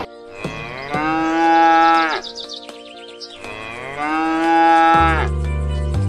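Cow mooing twice: two long drawn-out moos, each rising at the start and held, about three seconds apart, over faint background music. A loud low steady hum comes in near the end.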